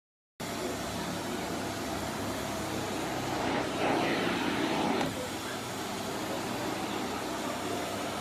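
Karcher VC3 Plus bagless multi-cyclone vacuum cleaner running with a steady rushing hum, starting abruptly and growing louder for about a second in the middle.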